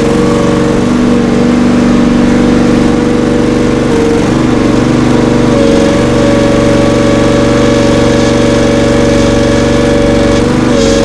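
Tractor engine idling steadily, close by, with its pitch wavering slightly a few seconds in.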